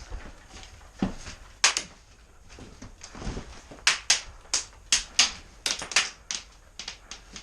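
Airsoft gunfire: sharp snapping shots fired singly at an irregular pace, a few in the first half, then a quick string of a dozen or so about four to seven seconds in.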